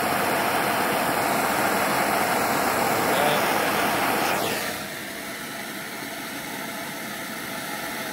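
Handheld gas blowtorch flame hissing steadily as it heats a copper washer to red heat to anneal it. About four and a half seconds in, the hiss drops to a quieter level.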